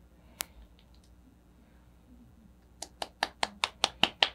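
A single sharp click, then, from near three seconds in, a quick even run of sharp clicks at about five a second, over faint room tone.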